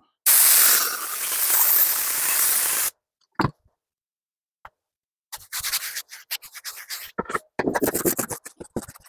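Air-powered upholstery spray gun hissing steadily for about two and a half seconds as it sprays contact adhesive onto a sheet of foam. From about five seconds in there is rubbing, then a quick run of scissor cuts through the glued foam backing.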